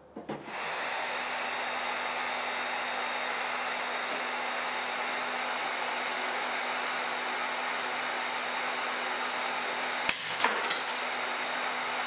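Electric heat gun starting up about half a second in and running steadily, blowing hot air onto a butane lighter. About ten seconds in the heated lighter bursts with a sharp pop, followed by a brief rush and a few small clicks as the butane shoots out, while the heat gun keeps running.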